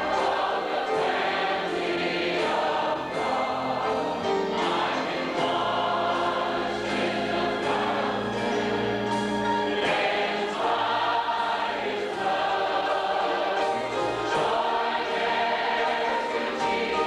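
Church congregation singing a gospel hymn together with musical accompaniment.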